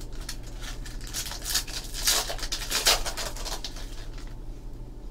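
Foil wrapper of a 2014 Bowman Sterling football card pack crinkling and rustling in the hands as the pack is opened and the cards are slid out, loudest about two to three seconds in, over a steady low electrical hum.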